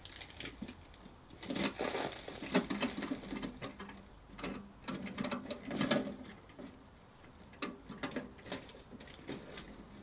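Wood chip tipped out of a wheelbarrow: a few seconds of clattering, pattering chips sliding and falling out, with knocks as the barrow is tipped and shaken. A few lighter knocks follow as it is set back down.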